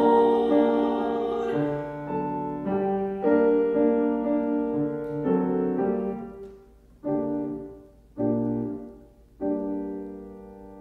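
A woman's final held sung note, with vibrato, ends about a second and a half in. A grand piano then plays the closing chords alone, finishing with three separate chords, the last left to ring and fade.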